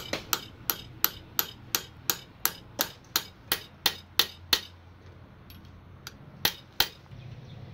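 Hammer tapping on a flat metal plate to drive a new shaft seal into the aluminium housing of a Denso common-rail diesel fuel pump: a run of about fourteen sharp, evenly spaced knocks at about three a second, then a short pause and two more knocks.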